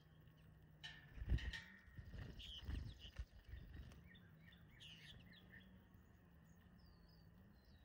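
Small birds chirping: short high chirps, some in quick even runs. Two low thumps come in the first three seconds, the louder about a second in, over a faint steady low hum.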